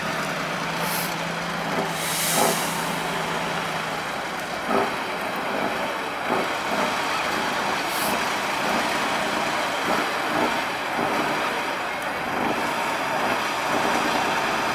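Tatra 813 6x6 trial truck's diesel engine working under load as the truck climbs a steep muddy bank, steady throughout, with a few short hisses, the loudest about two seconds in and another about eight seconds in.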